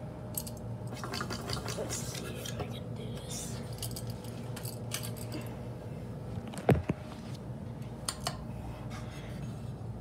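Metal ball pull chains of a Hampton Bay Hawkins ceiling fan jingling and clicking against the fixture, with one sharp ringing clink about two-thirds of the way through. A steady low hum runs underneath.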